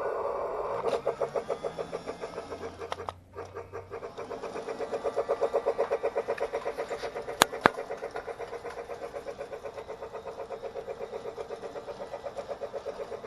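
Lionel Polar Express toy train running on its track, a fast, even rhythmic chugging, with two sharp clicks about halfway through.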